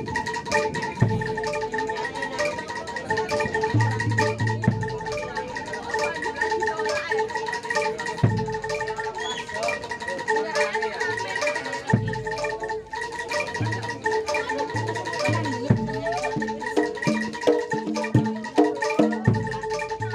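Live Javanese gamelan music accompanying kuda lumping: mallet-struck metal instruments keep up a fast, evenly repeated note while low drum strokes come in irregular groups.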